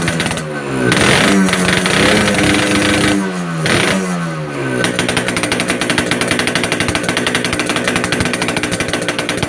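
Yamaha RX-King 135cc two-stroke single revved in a few throttle blips, its pitch rising and falling, then settling about halfway through to an idle with fast, even exhaust pulses. The exhaust has a crisp, snoring tone.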